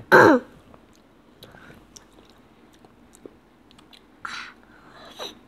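A short vocal sound sliding down in pitch just after the start, the loudest thing here. Then close-miked chewing with small fork clicks, and a bite into a piece of pear about four seconds in.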